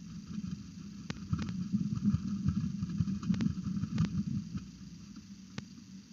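Peregrine falcon flapping its wings hard in a nest box, the wingbeats buffeting the microphone as irregular low thumps, loudest in the middle, with a few sharp clicks. A steady low hum runs underneath.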